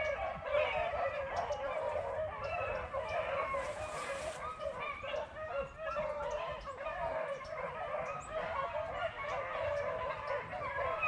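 A pack of beagles baying in full cry on a rabbit chase, many voices overlapping in a continuous chorus.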